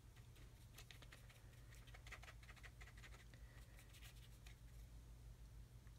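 Faint scratching and light tapping of a paintbrush dabbing dry weathering pigment onto a small model part, over a low steady hum.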